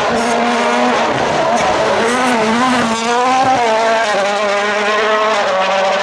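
Toyota Yaris WRC rally car's 1.6-litre turbocharged four-cylinder engine driven hard, its pitch rising and falling with throttle and gear changes, dipping about three seconds in and then climbing steadily.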